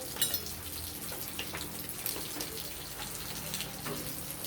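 A few light clicks and clinks of motorcycle engine parts being handled during disassembly, over a steady background hiss with a low hum.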